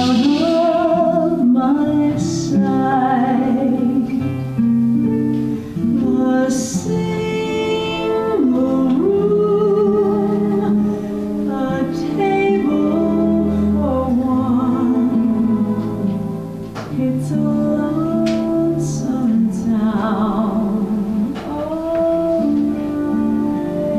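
Music: a song with a singing voice over plucked guitar accompaniment, held notes sliding between pitches.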